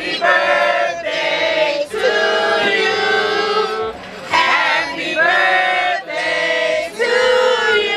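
A group of voices singing a birthday song together in chorus, with long held notes.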